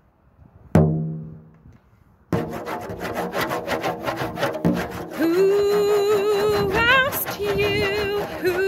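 A single stroke on a large frame drum with a wooden beater about a second in, ringing and dying away. About two seconds in, a steady rasping, rubbing sound starts, and from about five seconds a woman's voice joins it, singing long wavering held notes without words.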